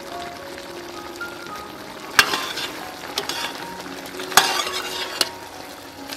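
Braised pork sizzling in a thick sauce in an aluminium pot while a metal ladle stirs it. The ladle knocks sharply against the pot about two seconds in, again past four seconds, and once more a second later.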